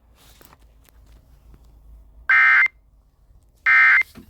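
Two short bursts of Emergency Alert System SAME digital data tones, a harsh buzzing screech a little past halfway and again about a second later. Bursts this short are the end-of-message code that closes an EAS alert.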